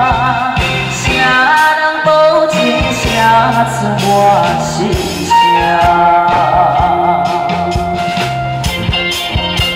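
A male singer sings a Hokkien song live into a microphone, backed by a band with drums and keyboards. He holds long notes with vibrato near the start and again about two thirds of the way through.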